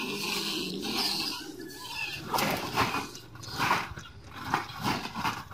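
Large field rats caught in wire cage traps, making a run of short, irregular animal calls and scuffles.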